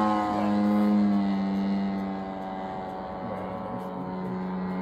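RC model Pitts biplane in flight: its motor and propeller drone at a steady pitch, growing fainter after about two seconds.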